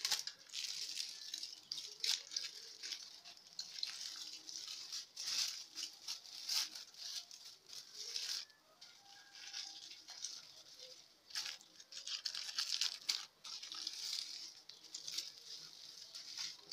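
Aluminium foil crinkling and rustling as hands press and twist it tightly around a roll to close the ends, in irregular bursts with short pauses.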